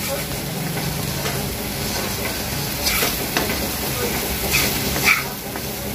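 Wooden spatula stirring and scraping a thick poppy-seed masala paste around a kadai as it fries and sizzles in a little oil, the masala now well fried. A few sharper scrapes of the spatula against the pan come in the second half.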